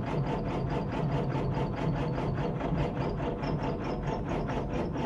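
1951 Ford E493A's side-valve four-cylinder engine being turned over by its starter motor on a cold first start with the choke out, churning in an even, quick rhythm without catching.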